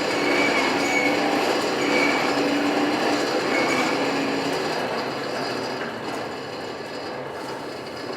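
Forge blower running and driving air into the coal fire: a steady rush of air with a faint on-and-off whine in the first few seconds. It starts suddenly and slowly eases off in the second half.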